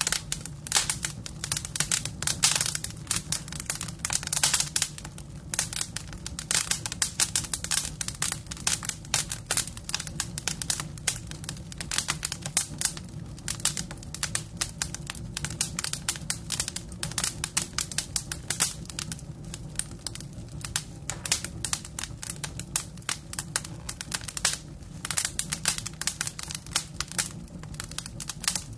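A large outdoor crowd making a dense, irregular patter of small clicks and rattles that runs on without a break, over a low steady hum.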